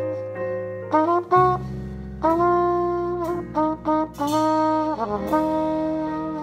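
Trumpet muted with a McNeill Washburn Voca Vented cone mute, playing a slow jazz ballad phrase of held and short notes, some bending down at their ends. A jazz trio's low accompaniment sounds underneath.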